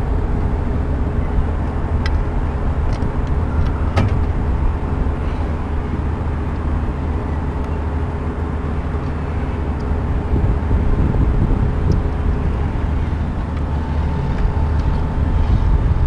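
Steady low rumble with a constant hum, broken by a few light clicks and knocks, the sharpest about four seconds in, from handling the plastic cover of a radar scanner unit.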